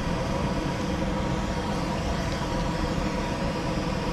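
A steady low rumble and hum with a faint constant tone in it, unchanging throughout, like machinery or distant traffic.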